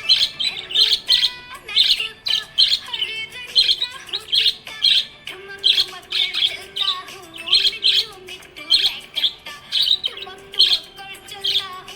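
Budgerigar chirping: short, sharp, high chirps repeating about two to three times a second.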